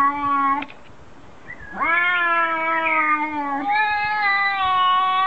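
Two tabby cats in a standoff, yowling at each other in long, drawn-out, wavering calls: the threatening caterwaul of two cats squaring up. One call breaks off within the first second; after a short pause a new one rises in and is held for nearly two seconds, and another follows straight after it.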